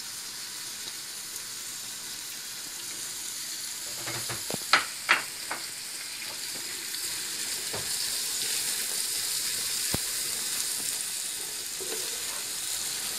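Sliced onions and garlic sizzling in hot oil in an aluminium pot, frying toward light golden. A wooden spatula stirs them, knocking and scraping against the pot a few times around the middle.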